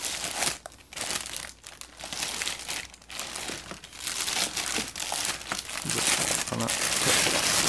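Clear plastic packaging bag crinkling and rustling as it is handled around a tool being lifted out of a box, growing louder near the end.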